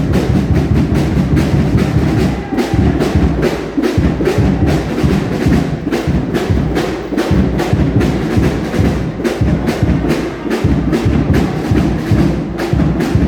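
Drums and percussion playing a fast, steady beat of about four strokes a second, with sharp woodblock-like hits over a heavy low drum sound.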